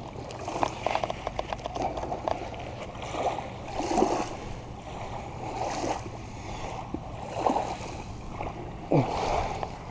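Outdoor wind and water noise at the shoreline: wind on the microphone, with small waves washing in and swelling every second or two.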